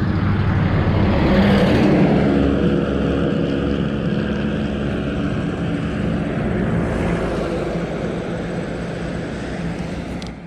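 Engine of a passing vehicle, loudest about two seconds in with its pitch dropping slightly as it goes by, then slowly fading away.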